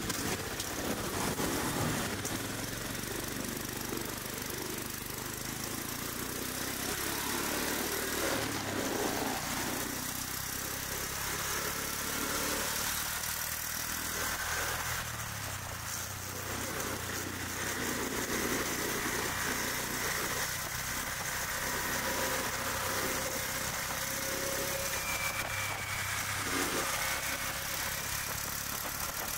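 Busy street traffic: motor scooters and cars idling and driving past, a steady mix of engine noise.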